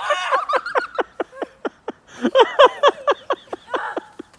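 Rapid run of short laughs, then excited voices calling out.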